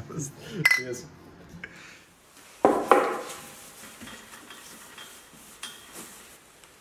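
Hard objects clinking and clanking as they are handled. A sharp glass clink from a beer bottle comes under a second in, and a louder metallic clank with a brief ring follows about two and a half seconds in. After that there are a few faint taps and handling noises.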